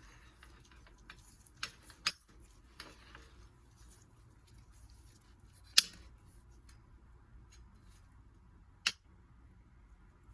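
Scattered sharp clicks and knocks of hand tools and bicycle bottom-bracket parts being handled, about five in all, the loudest about halfway through.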